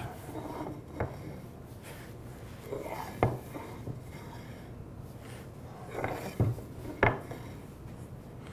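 Laminated hardwood end-grain strips being lifted, flipped and set back down on a wooden workbench: several sharp wooden knocks, about four, with the blocks sliding and rubbing against each other in between.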